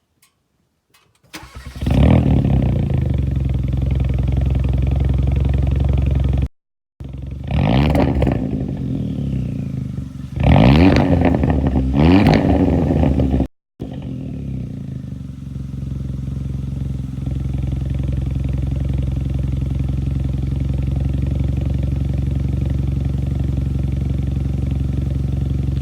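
2019 Hyundai Elantra Sport's turbocharged 1.6-litre four-cylinder, heard through a Pierce Motorsports axle-back exhaust, starting up about a second in with a brief flare and settling to idle. Midway it is blipped three times with quick revs that rise and fall, then it idles steadily to the end. The sound cuts out completely twice for a moment.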